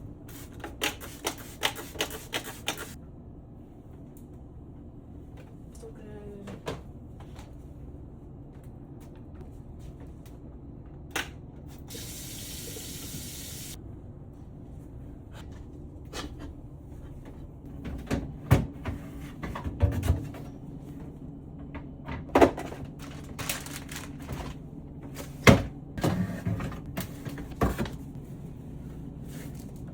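Household fridge being cleaned out: scattered knocks and clatter of containers and shelves being handled, with a brief hiss about twelve seconds in, over a steady low hum.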